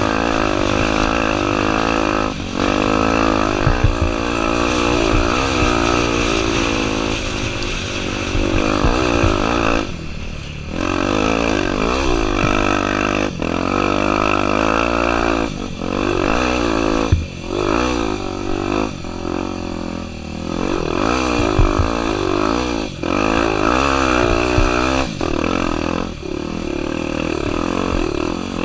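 Honda Tornado 250's single-cylinder four-stroke engine revving up and down over and over as the throttle is opened and closed, with short dips every few seconds where the revs drop.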